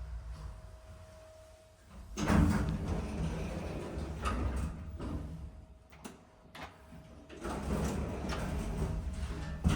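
Old Toshiba Elemate elevator's sliding doors moving twice with a rattly clatter: the first run starts about two seconds in, a few clicks follow, and the second run ends in a sharp bang near the end as the doors meet. A faint steady hum comes before the first run.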